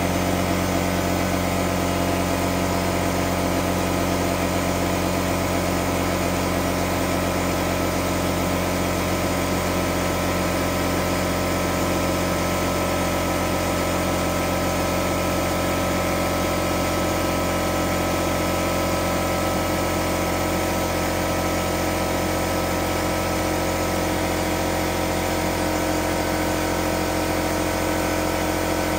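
Air compressor running steadily, a constant machine drone that does not change pitch or level.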